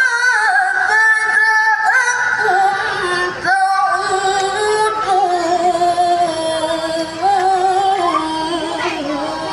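A woman reciting the Qur'an in the melodic contest style (tilawah), drawing out long ornamented held notes, with a brief pause for breath about three and a half seconds in.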